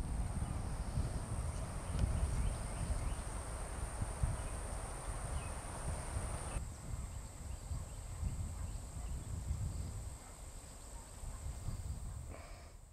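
Wind buffeting the microphone outdoors, with a thin steady high whine and a few faint chirps. The sound changes abruptly about six and a half seconds in.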